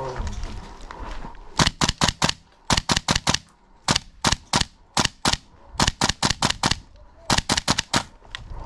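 GHK SIG gas blowback airsoft rifle firing about two dozen sharp shots in six quick strings of two to six shots each, starting about one and a half seconds in.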